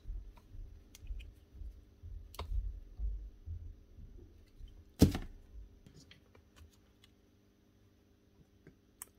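Small clicks and knocks of hedge trimmer parts and tools being handled on a workbench during reassembly, with one sharp knock about five seconds in; it goes quieter over the last few seconds.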